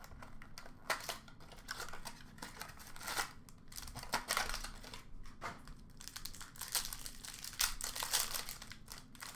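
Plastic and foil wrapping of a box of hockey trading cards being torn open and crinkled by hand: a string of irregular rips and rustles.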